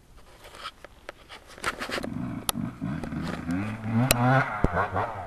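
Dirt bike engine revving, growing louder from about two seconds in and rising and falling in pitch, with a few sharp clicks.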